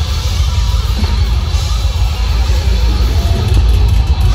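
Heavy metal band playing loud and live through a club PA, recorded by phone from within the crowd: heavy bass and drums under distorted guitars, with no break.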